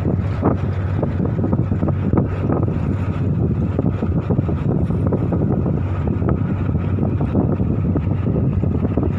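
Strong gusty wind blowing hard across the microphone: a continuous loud rumbling rush with irregular buffeting.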